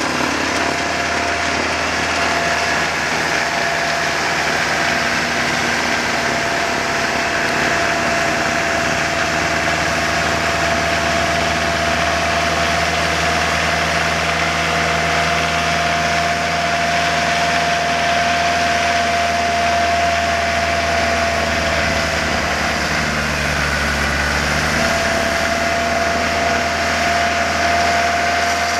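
McCormick compact tractor's diesel engine running steadily under load, driving a front-mounted two-stage snowblower as it throws snow, with a steady whine on top. The whine drops out for a couple of seconds about three quarters of the way through, then returns.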